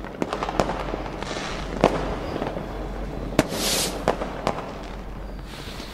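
Fireworks sound effect: a string of sharp pops over a crackle, with a brief hiss about three and a half seconds in.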